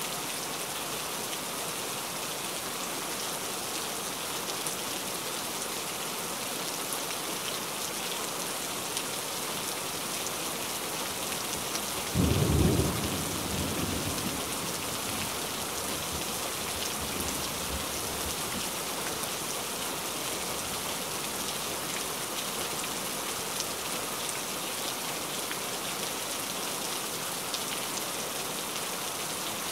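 Heavy rain falling steadily, with one loud low crack of thunder about twelve seconds in that fades into a rumble over a few seconds.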